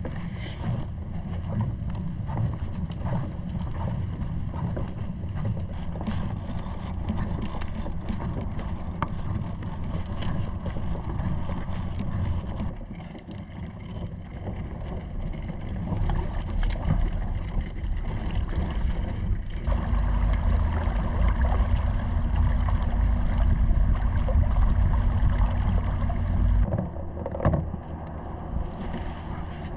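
Water sloshing and gurgling around a kayak as it is launched and moves off, over a steady low rumble that grows louder about twenty seconds in and drops away near the end.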